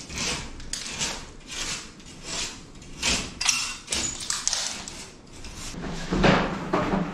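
Irregular scrapes, rustles and knocks of hands-on renovation work, a few a second, getting louder about six seconds in.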